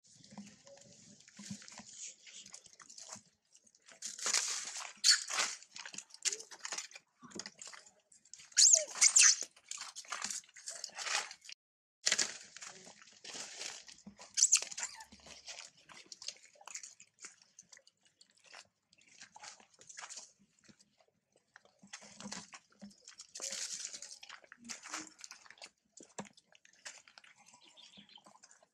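Long-tailed macaques screeching and squealing in many short, shrill bursts, loudest in clusters a few seconds in and again around the ten-second mark.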